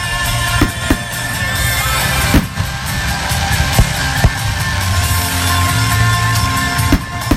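Loud music plays throughout, with about six sharp bangs of aerial fireworks bursting over it.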